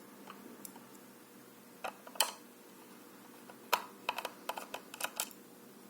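Scattered small clicks and taps of a Phillips screwdriver working the screws on the underside of a plastic computer mouse, with a sharper click about two seconds in and a quick run of clicks over the last two seconds.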